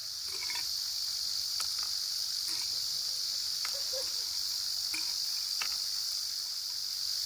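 Steady high-pitched chorus of insects calling in summer, with a few faint scattered clicks over it.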